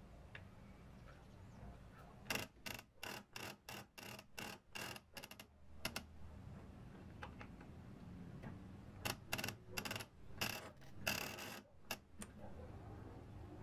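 Old Hasler Bern railway speedometer's gear mechanism clicking with a metallic ring as it is worked by hand. There are two runs of quick ticks, about three or four a second, with a pause between them.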